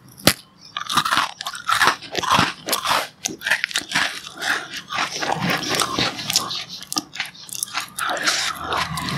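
Crisp glucose biscuits being bitten and chewed: a quick, continuous run of dry crunches, with one sharp bite about a third of a second in.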